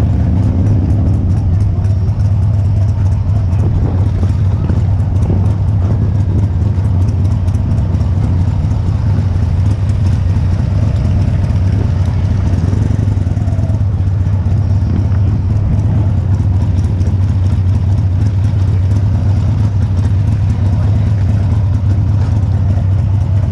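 The rider's own motorcycle engine running steadily at low speed in slow street traffic, with a constant low drone.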